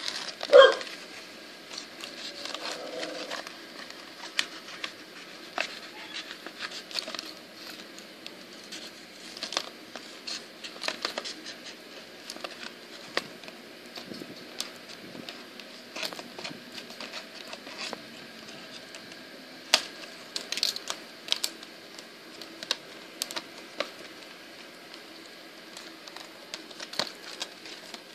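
Clear plastic blister packaging crackling and clicking in irregular snaps as fingers press and flex it. There is one loud, short, pitched sound about half a second in.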